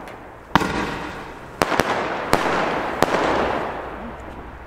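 Pyroland Hyper Maze compound firework cake with double crossette effects firing: five sharp bangs of bursting shots, half a second to a second apart, with a dense crackling wash between them from the splitting stars. The sound fades out near the end.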